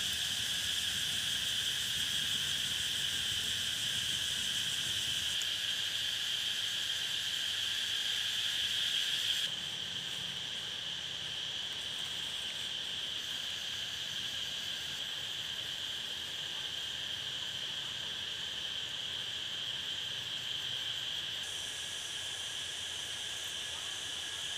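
Steady chorus of insects in the forest: a continuous high buzzing drone with no breaks. It drops slightly in loudness about ten seconds in.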